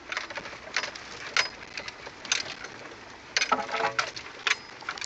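Irregular knocks and rattles inside the cab of a Nissan Pathfinder as it rolls over a rough snowy track, with a brief pitched creak about three and a half seconds in.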